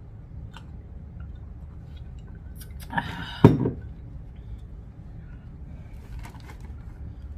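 A glass mug set down on a table: a short rush of sound, then a sharp thump about three and a half seconds in.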